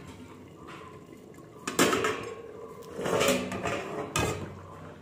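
Aluminium lid clattering against a large aluminium cooking pot as it is lifted off: a sharp clank about two seconds in, a longer rattle of metal on metal a second later, and another knock near the end.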